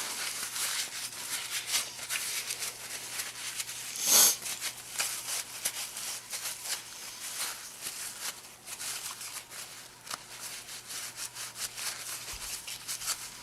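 Scraping and rubbing as old grease and dirt are cleaned out of a power window motor's gear housing. It is a steady run of short scratchy rasps, with one louder, sharper sound about four seconds in.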